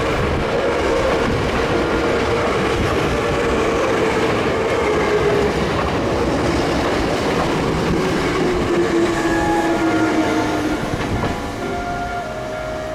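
Hankyu electric train passing close by, a loud, steady rumble and wheel clatter with a tone that slowly falls in pitch. The sound eases off near the end.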